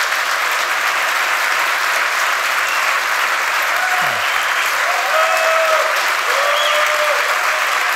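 Large audience applauding steadily after a talk, with a few voices calling out during the clapping from about four seconds in.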